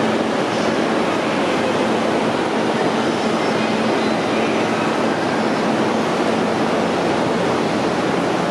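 JR Tokaido Line local train at the platform, a steady, even rumble with a faint hum and no sharp events.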